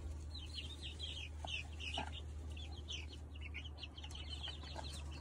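A flock of young chicks peeping constantly while they feed, many short, high, falling peeps overlapping one another, over a steady low hum.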